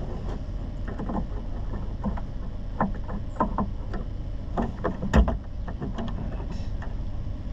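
Clicks and knocks of hand tools and plastic trim being worked on a pickup truck's door, the loudest knock about five seconds in, over a steady low rumble.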